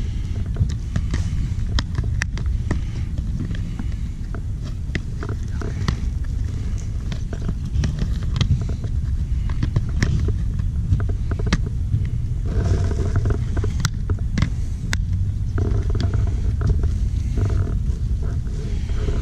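Steady low road rumble inside a moving car, with many scattered small clicks and rattles.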